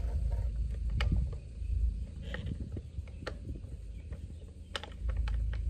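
Scattered clicks and light knocks as the air cleaner cover is pressed and worked onto its gasket on a Harley-Davidson 114 engine, a fit that is not seating right. A low rumble comes and goes underneath.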